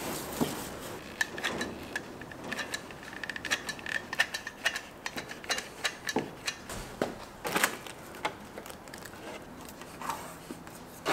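Hand work with a clear plastic sheet and masking tape along a fender-flare plug: irregular small clicks and crinkles, with a couple of sharper snaps around the middle.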